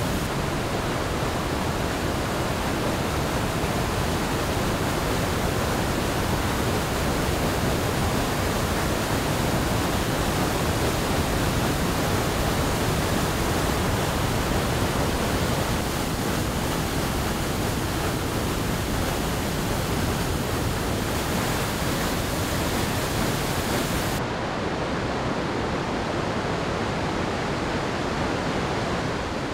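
Floodwater rushing over a dam spillway and churning below it: a steady, even roar of water and spray. About three-quarters of the way through, the highest hiss falls away and it becomes slightly softer.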